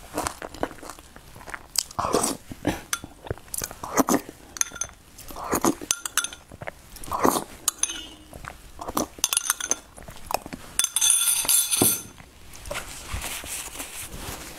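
A metal spoon clinking and scraping against a small glass bowl, with crunchy bites and chewing in between, and a brief glassy clatter about eleven seconds in.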